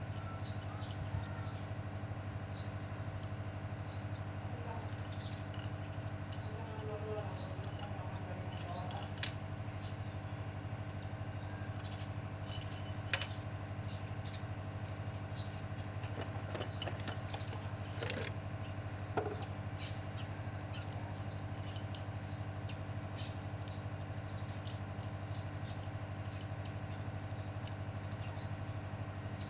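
Steady low hum with small birds chirping repeatedly over it, and a few sharp clicks scattered through.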